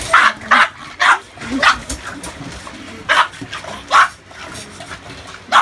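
Boston Terrier play-barking at a ball: about seven short, sharp barks in an uneven run, several close together at the start and more spread out later.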